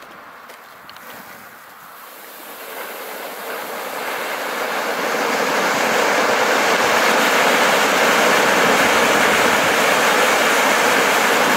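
Four silver fountain fireworks (Funke Zilverfontein / Silbertürme, Category 1 ground fountains) hissing as they burn. After a few faint ticks at first, the hiss builds over the first few seconds as the fountains catch, then holds steady and loud.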